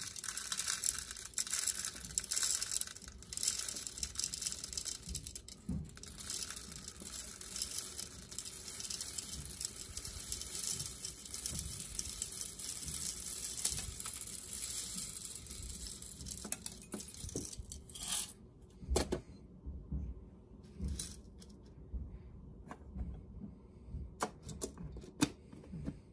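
Roasted coffee beans pouring from a stainless steel bowl into a coffee grinder's plastic hopper: a steady rattling patter of beans for most of the time, thinning about eighteen seconds in to a few scattered clicks as the last beans drop and settle.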